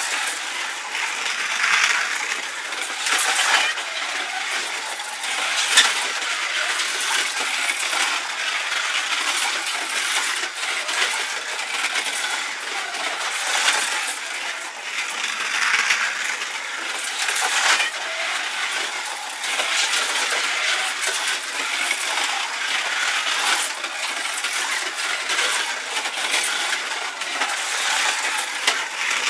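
Slot cars lapping a plastic slot car track: the small electric motors whine and the cars rattle along the slotted track, growing louder and fading again every few seconds as a car passes close.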